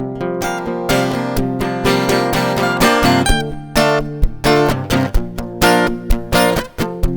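Background music: acoustic guitar being strummed and picked at a quick pace, with the strumming growing busier about halfway through.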